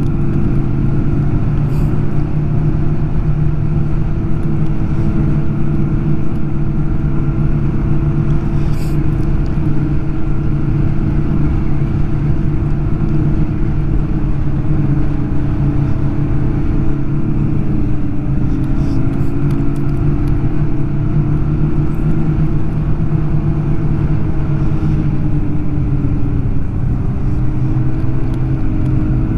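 Snowmobile engine running at a steady trail-riding speed, its pitch dipping and rising slightly about two-thirds of the way through and again near the end.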